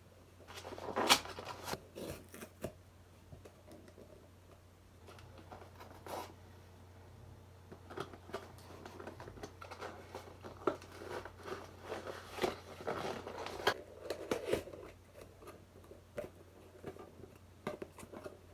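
A cardboard box being cut and torn open by hand: irregular scraping, tearing and crinkling with scattered clicks, the loudest burst about a second in.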